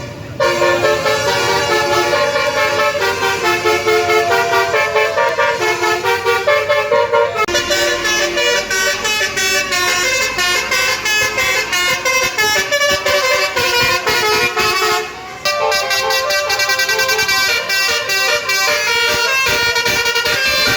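Basuri 'telolet' multi-tone bus air horn playing a fast melody of short notes, with brief pauses near the start and about three-quarters of the way through.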